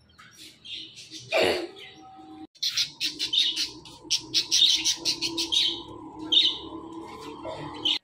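Small parrots chirping: a few scattered chirps and one loud, short falling call about a second and a half in, then, after a brief break, a fast, dense run of high chirps from a caged flock of budgerigars with a ringneck parakeet, over a steady low hum.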